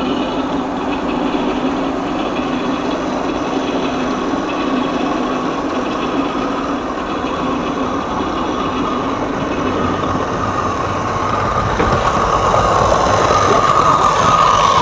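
Train sound effects played from a 45 rpm vinyl record: a locomotive running steadily, growing louder over the last few seconds.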